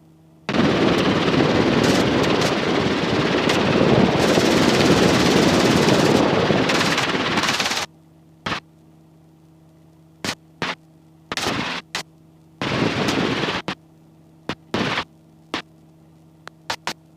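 Helicopter radio and intercom audio cutting in and out: a long rush of static-like noise for about seven seconds, then a string of short crackling bursts as the squelch opens and shuts, over a faint steady hum.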